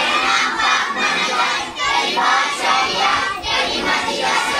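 A group of children reciting the Lord's Prayer aloud together in unison, many voices overlapping.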